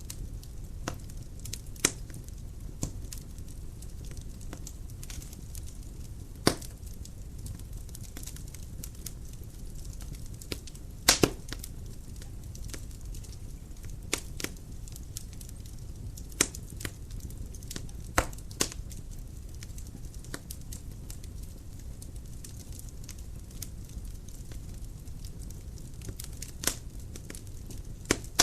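Dry firewood burning in a fireplace: a steady low rumble of flame with irregular sharp crackles and pops from the logs, the loudest a quick double pop about eleven seconds in.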